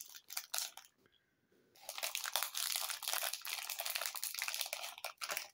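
Fruit Gushers snack packaging crinkling as it is handled. A few scattered crackles, a pause about a second in, then nearly continuous crinkling.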